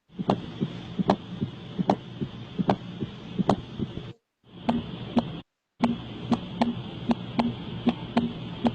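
Recorded heart sounds: a regular beat of a little over one a second, sharp clicks with low thumps, over a steady hiss. The sound breaks off twice in brief dead silences about four and five and a half seconds in, where separate recordings are joined.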